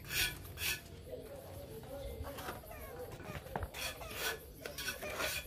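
A few short scrapes of a mason's trowel working mortar in a basin, with faint voices in the background.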